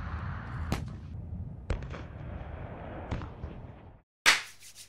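Tank gunfire over a steady low rumble: several sharp bangs, the last about three seconds in. The sound cuts out about four seconds in. A loud brushing hit follows, then quick, repeated scratchy rubbing.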